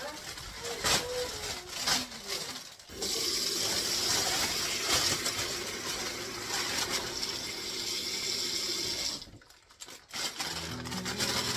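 Kitchen tap running into a sink for about six seconds, a steady splashing hiss that stops abruptly, after a few light knocks and clatter.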